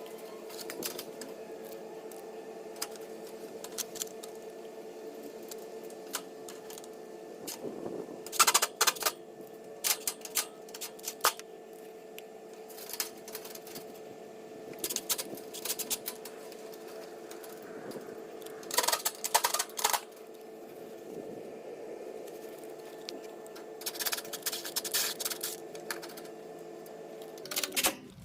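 Air-conditioner condenser cabinet being reassembled: about six bursts of rapid metallic clicking and rattling, each lasting about a second, over a steady hum.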